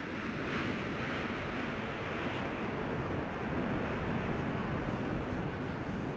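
Steady rushing noise of wind on an outdoor microphone, even throughout with no distinct tones or impacts.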